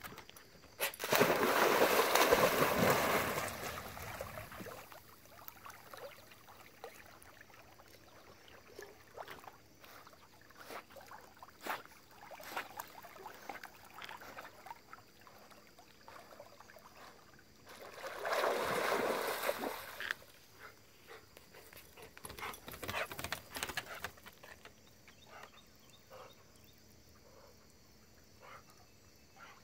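Dog jumping off a dock and splashing into lake water about a second in, followed by faint water sounds as it swims, and a second shorter burst of splashing about two-thirds of the way through.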